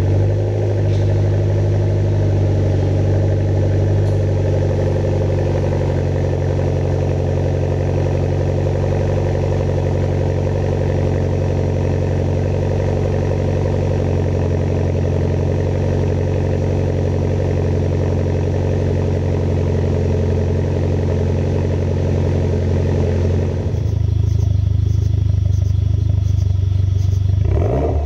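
Mitsubishi Lancer Evolution X's turbocharged 2.0-litre four-cylinder idling steadily through an ETS V3 dual-muffler catback exhaust, just after start-up. The note shifts about 24 s in, and a rev begins right at the end.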